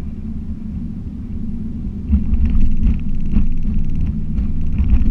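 Car cabin noise while driving: a steady low rumble of engine and tyres on the road, growing a little louder about two seconds in.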